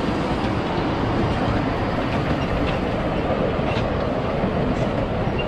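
Ride-on miniature park train running on its narrow-gauge track, a steady noise with no breaks.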